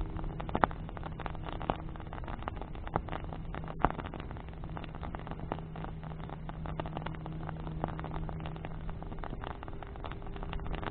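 Wood bonfire crackling, with irregular sharp pops, the loudest about a second in and about four seconds in, over a steady low hum.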